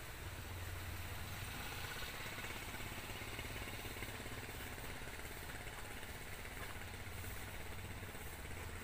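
Floodwater of a swollen river rushing past the bank: a steady rushing noise over a continuous low rumble.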